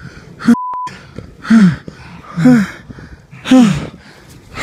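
A person's loud, voiced gasping breaths, about one a second, each falling in pitch. A short steady single-tone beep cuts in about half a second in.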